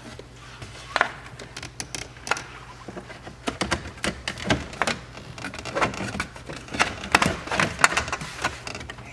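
Hard plastic door-sill trim panel of a C5 Corvette being slid and pressed back into place: an irregular run of clicks, taps and knocks, few at first and coming thick and fast after about three and a half seconds.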